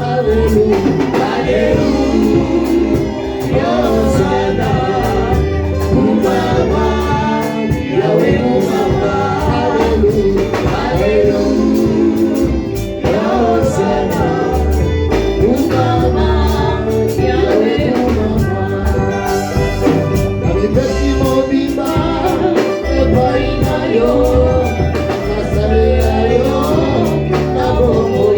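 Gospel worship song sung by a choir of voices over a band with a steady bass and beat.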